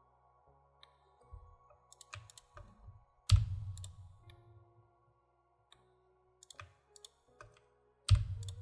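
Computer keyboard and mouse clicks at scattered intervals, with two louder knocks, one about three seconds in and one near the end.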